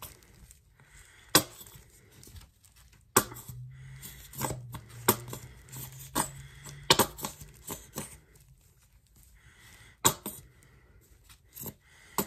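A plastic hair-dye jar handled in gloved hands over a mixing bowl: scattered sharp taps and knocks as dye is worked out of the upturned jar, with rustling of the rubber gloves between them. A low hum sits under the handling for a few seconds in the middle.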